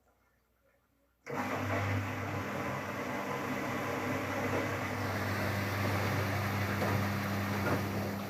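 Whirlpool FSCR90425 washing machine during its softener rinse: after about a second of near silence it starts up suddenly and runs with a steady low hum over a rushing noise.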